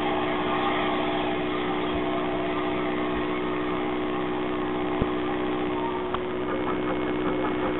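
Steady running noise of a steam locomotive at a station, a Southern Railway Bulleid Pacific: a constant hum with a few steady tones over a hiss. There is a single knock about five seconds in, and light rapid ticking near the end.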